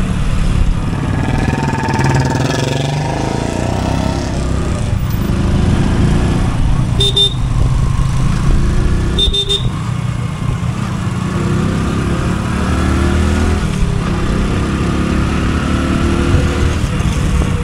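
Motorcycle engine running while riding, its pitch rising and falling as the bike speeds up and slows down. Two short beeps sound about seven and nine and a half seconds in.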